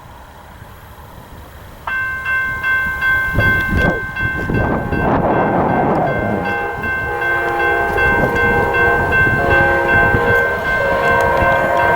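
Amtrak locomotive's Nathan K5LA multi-chime air horn sounding a long held chord, starting suddenly about two seconds in, with lower horn tones coming and going from about seven seconds. A passing train's rumble runs underneath.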